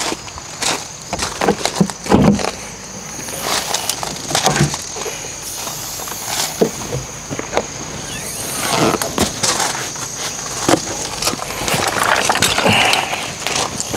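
Irregular knocks and clatter, busier near the end, over a steady high-pitched insect drone.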